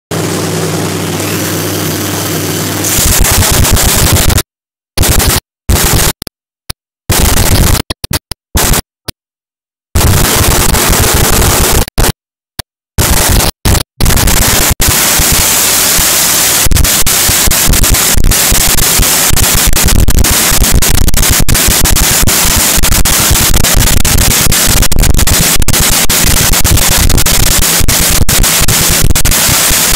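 Supercharged nitromethane-fuelled drag-racing engine test-fired in the pits, so loud that it overloads the phone microphone into harsh distorted noise. A steadier hum for the first few seconds gives way to the full blast, with the recording cutting out again and again for several seconds before the noise runs on unbroken.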